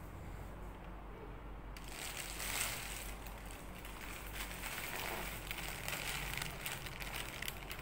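Thin black plastic parcel wrapping crinkling and rustling as hands handle the package, starting about two seconds in, over a low steady hum.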